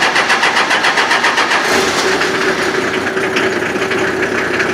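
Truck engine being started with the key: the starter cranks with a rapid even beat, the engine catches a little under two seconds in and settles into a steady idle.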